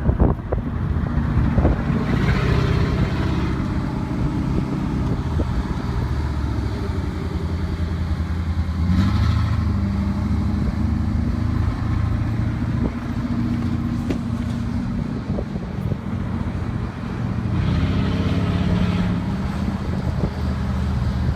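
Vehicle engine running steadily while driving, with road and wind noise. The engine note shifts slightly about nine seconds in.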